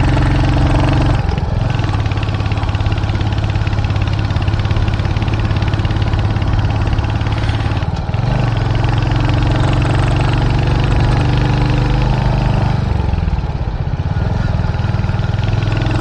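Royal Enfield 350's single-cylinder engine running under load as the motorcycle is ridden, its pitch shifting a few times, about 1, 8 and 13 seconds in. The engine is labouring: the bike is struggling to pull.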